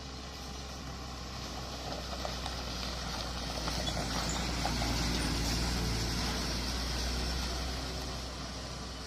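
Heavily loaded truck passing by: its engine and tyres grow louder to a peak about halfway through, then fade away.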